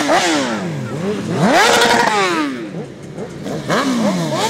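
Several sport motorcycles revving as they ride past in a line, their engine pitch climbing and falling over and over. One big rev rises and falls away about two seconds in, and the revving eases off briefly before quick blips start again near the end.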